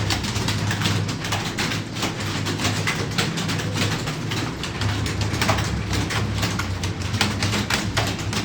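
Rapid, irregular clicking of computer keyboard keys during fast typing, over a steady low hum.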